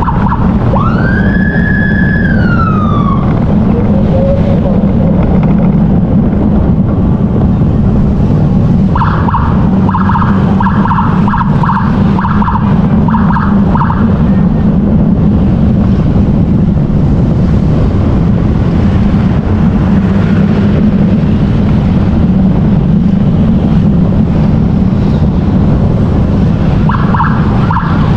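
Emergency siren sounding in spells over the steady drone of a motorcycle's engine and wind. There is one rising-and-falling wail near the start, a run of rapid on-off pulses from about nine to fourteen seconds in, and the pulsing starts again near the end.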